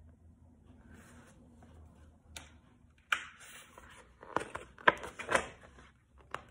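Pages of a large picture book being turned and handled: soft paper rustling, then louder rustles and a few sharp snaps of the stiff pages from about three seconds in.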